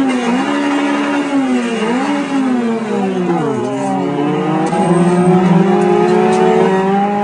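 2002 Acura RSX Type-S's 2.0-litre four-cylinder engine at racing revs, heard from inside the cabin. It holds its pitch, dips briefly about two seconds in, falls for over a second as the revs drop, then climbs steadily as it accelerates again.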